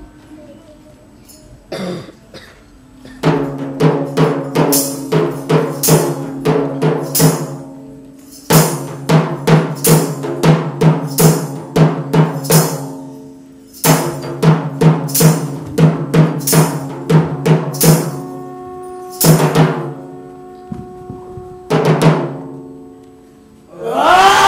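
Stage background music: runs of quick, evenly spaced drum strikes over a held low tone, in three bursts with short gaps, then two single strikes. Near the end a loud swelling sound with sliding pitches comes in.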